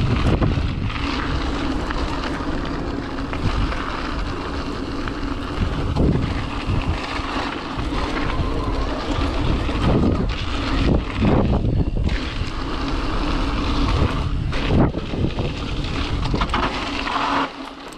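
Wind buffeting the microphone over the rattle and knocks of an e-mountain bike riding rough singletrack, with a steady low hum from the bike's Tongsheng TSDZ2 mid-drive motor that comes and goes.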